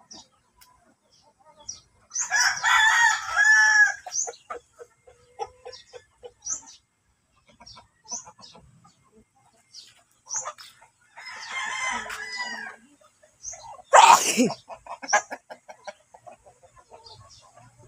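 Roosters crowing twice, each crow about two seconds long, about two seconds in and again about eleven seconds in, with short high chirps scattered between. A short, loud sound about fourteen seconds in.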